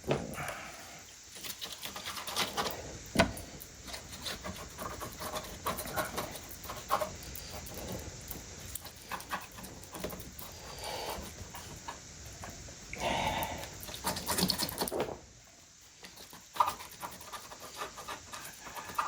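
A glue brush spreading hot hide glue onto a mahogany panel: irregular scratchy strokes, with a sharp knock about three seconds in and a louder run of strokes near the end.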